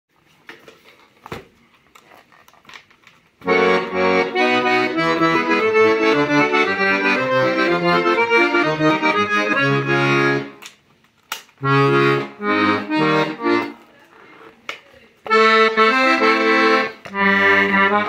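Hohner Concerto III piano accordion played with the right-hand keys and the left-hand bass buttons, sustained chords over low bass notes. A few faint clicks come first, the playing starts about three seconds in, and it breaks off twice briefly.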